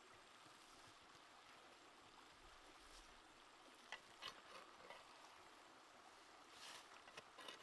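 Near silence: a faint steady hiss, with a few soft knocks about four seconds in and again near the end as onion wedges are dropped by hand into a clay pot of chicken curry and potatoes.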